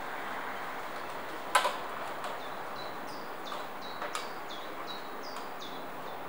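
A small bird calling over and over with short, high chirps that each drop in pitch, over a steady outdoor background hiss. A single sharp knock about a second and a half in.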